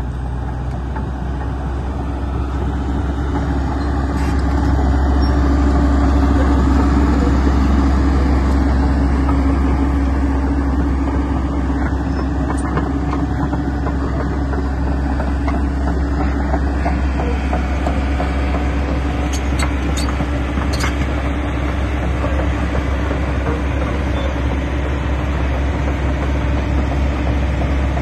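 Kobelco SK210LC hydraulic excavator's diesel engine idling steadily, with a few light clicks about two-thirds of the way in.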